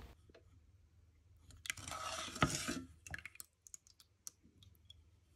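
Wooden spatula stirring milk, cream and sugar in a pot: a brief swishing scrape about two seconds in with a knock, then a few light clicks.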